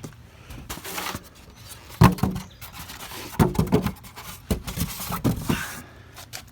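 Styrofoam packing pieces and cardboard being handled and pushed into a box: irregular knocks, squeaks and rustles, the loudest about two seconds in.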